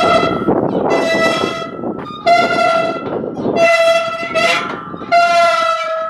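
A horn sounding in about four blasts of roughly a second each, one steady pitch with a bright, brassy tone.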